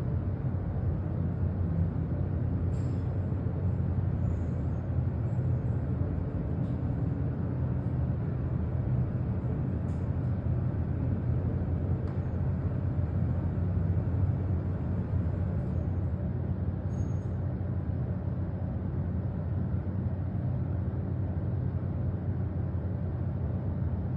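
Steady low hum of a hydraulic passenger elevator ride, with a few faint clicks.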